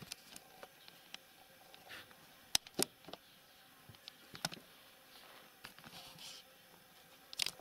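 Quiet room tone broken by a few short, sharp clicks, two close together about two and a half seconds in and another about four and a half seconds in.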